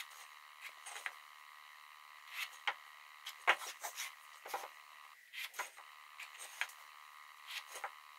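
Light, scattered taps, knocks and scrapes of pine boards and a pencil being handled on a worktable while the joint is marked out, over a faint steady hum.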